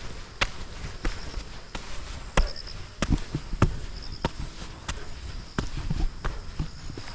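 Footsteps on a hiking trail: steady walking, with sharp footfalls at a little over one and a half steps a second.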